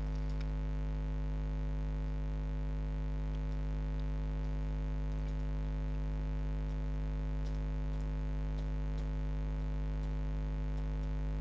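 Steady electrical mains hum with a stack of even overtones, picked up on the recording microphone, with a few faint ticks now and then.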